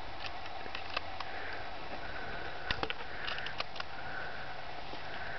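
Scattered light clicks and clacks of shells being loaded into a Remington 1100 semi-automatic shotgun, over a steady background hiss.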